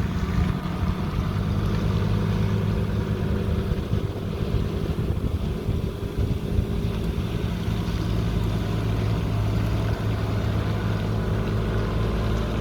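Big truck's engine running steadily at low speed as it manoeuvres, a low even hum with little change in pitch.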